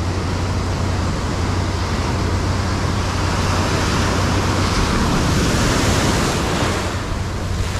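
Ocean surf breaking and washing up the beach. The rushing swells to its loudest about five to six seconds in as a wave surges in foaming around the angler's feet, then eases.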